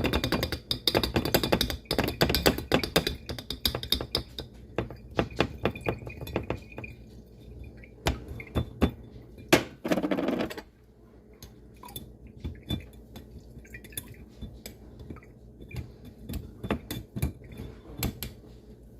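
A utensil scraping and clinking against a strainer as wet steeped flowers are pressed to push the tea out into a jar. Rapid scraping for the first few seconds, a louder scrape about ten seconds in, then scattered light taps and clinks.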